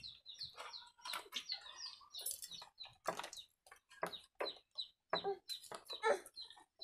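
Chickens clucking in short, irregular calls.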